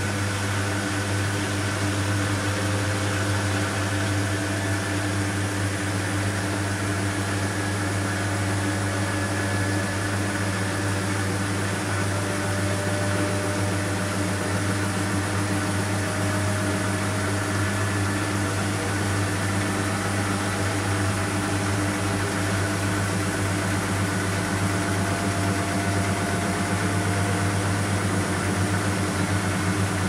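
Beko WMY 71483 LMB2 front-loading washing machine spinning its drum near the end of the cycle, its ProSmart Inverter motor giving a steady hum with a whine that climbs slowly in pitch as the drum speeds up toward the 1400 rpm final spin.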